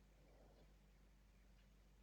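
Near silence with a steady low hum: the quiet gap between a sleeping person's snores.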